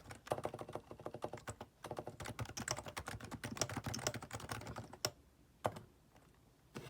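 Typing on a Topre Realforce R2TLS keyboard with silenced, evenly weighted 30 g Topre capacitive switches: a fast, dense run of keystrokes that stops about five seconds in, followed by three single key presses.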